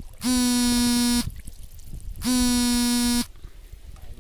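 Electronic buzzer sounding twice, a steady-pitched buzz lasting about a second each time, with a second's gap between, in an even on-off rhythm.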